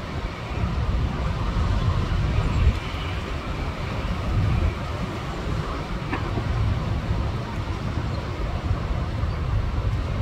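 Strong storm wind gusting across a phone microphone: a heavy low rumble of buffeting with a hiss of wind above it, rising and falling in gusts.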